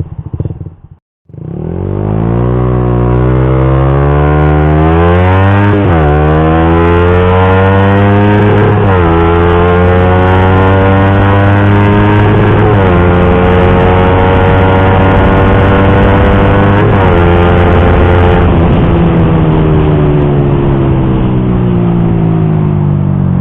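Suzuki GSX-R150's single-cylinder engine through an R9 Misano aftermarket racing exhaust, accelerating hard through the gears. After a brief break in the sound about a second in, the pitch climbs, drops back at four upshifts, then falls away as the throttle eases near the end.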